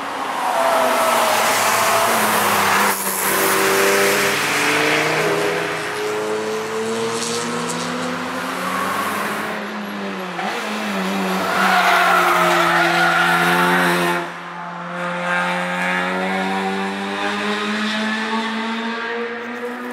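Cars being driven hard through a corner of a race track, one after another: engine notes drop as they brake and rise as they accelerate away, with tyre squeal on top. There are two main loud passes, the second, around the middle, revving up strongly before it cuts off.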